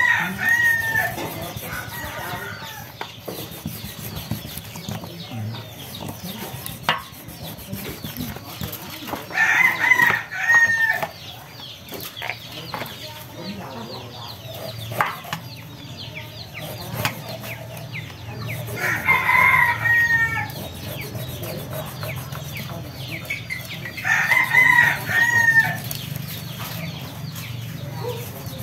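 A rooster crowing several times, each crow lasting about a second and a half and coming several seconds apart. Between the crows there are faint clicks and scrapes over a steady low hum.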